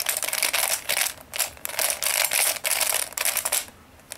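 Square-1 puzzle's plastic layers being turned quickly by hand: a fast run of clicks and clacks as the layers rotate and the middle slice flips, easing off briefly near the end.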